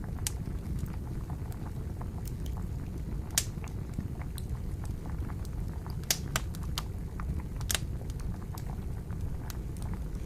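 A crackling wood campfire with water boiling over it. The boiling makes a steady low bubbling, and the burning wood gives irregular sharp pops and snaps. The loudest snaps come about three and a half seconds in and again around six and eight seconds in.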